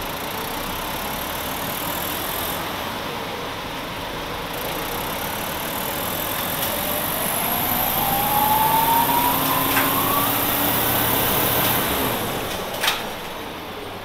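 1996 Nova Bus RTS-06 transit bus with a Detroit Diesel Series 50 engine accelerating: the engine gets louder and a whine climbs steadily in pitch for several seconds. The whine drops away suddenly near the end, followed by a single sharp click.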